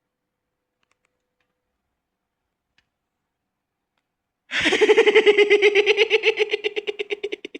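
A high voice giggling in a fast, even run of short pulses, about ten a second at a steady pitch, starting about four and a half seconds in after near silence and stopping abruptly near the end.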